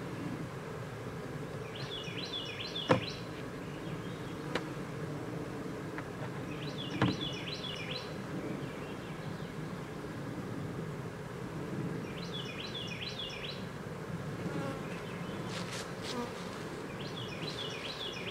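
Honeybees buzzing in a steady hum around an open hive. Two sharp knocks come about three and seven seconds in, the first the louder. A bird sings a short, high, repeated phrase about every five seconds.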